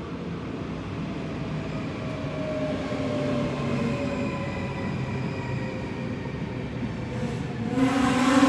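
NS yellow-and-blue double-deck electric train pulling into the platform and slowing, its drive whine falling slowly in pitch over the rumble of the wheels. Near the end a louder, steady whine of several tones sets in.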